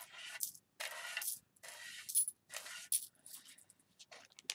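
Small antique-silver Tibetan-style alloy heart charms clinking and jingling against each other as they are scooped up by hand off a sheet of paper. The clinking comes in several short rattles.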